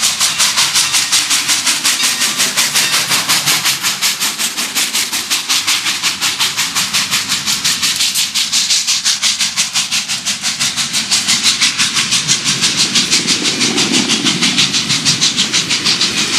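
Santa Fe 3751, a 4-8-4 Northern steam locomotive, passing at speed, its exhaust beating in a fast, even rhythm of about four to five hissing chuffs a second. The rumble of passenger cars rolling by swells near the end.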